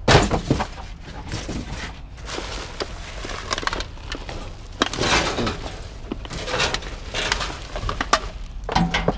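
Junk being pulled and shifted around in a heap by hand: irregular clattering, scraping and knocks, with a sharp knock at the very start.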